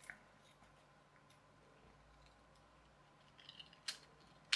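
Mostly quiet, then faint clicks and light rattling of small plastic clockwork-toy parts as the winder key is worked to put tension back on the spring, with two sharper clicks near the end.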